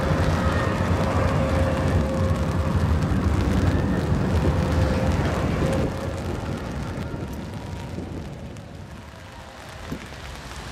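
Grenoble Alstom TFS tram passing close by: a steady rumble from the wheels on the rails, with a steady whine from its traction equipment. The sound drops off after about six seconds and fades as the tram moves away, with a single click near the end.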